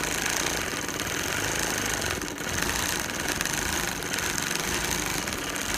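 Longarm quilting machine running steadily as its needle stitches through a quilted fabric panel, dipping briefly a little past two seconds in.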